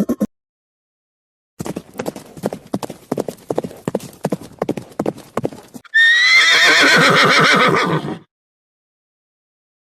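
Horse hooves clip-clopping at a fast gait for about four seconds, followed by a loud horse whinny lasting about two seconds with a wavering, falling pitch.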